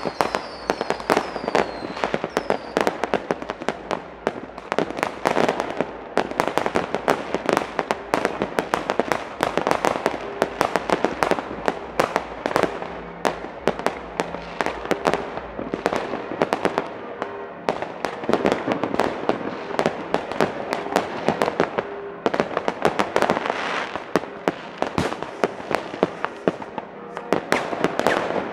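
Fireworks and firecrackers going off thick and fast, a continuous crackle of overlapping bangs and bursts. A run of short falling whistles comes in the first few seconds.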